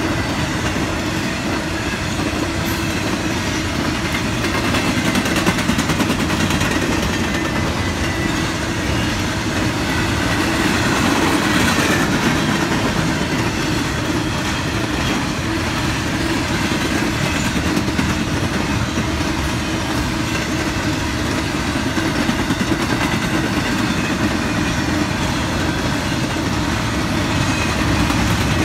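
Empty freight flatcars rolling past at a steady speed: the continuous noise of steel wheels on the rails, with some clickety-clack from the wheels.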